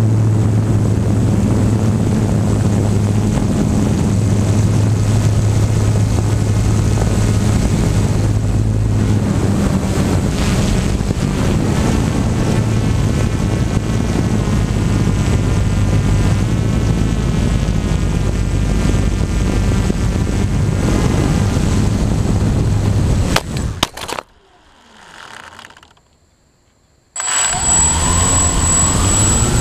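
Electric motor and propeller of a small camera-carrying remote-controlled aircraft, heard from its onboard camera with wind rushing past: a steady, loud hum. About 23 seconds in, a few sharp knocks as it comes down on the road, and the motor cuts out. About three seconds later the motor starts again and its whine rises as it spins up.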